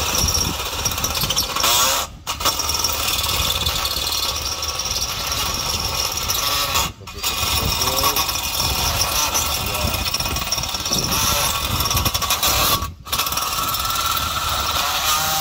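Cordless drill boring into galvanized sheet-metal cable trunking, running in long stretches with brief pauses about two, seven and thirteen seconds in.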